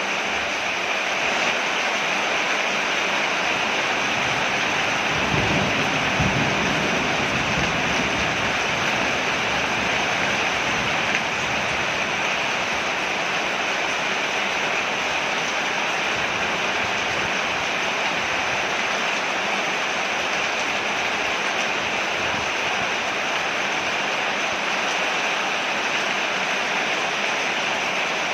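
Rain falling steadily on a porch: an even, unbroken hiss of water. A brief low rumble swells about five seconds in.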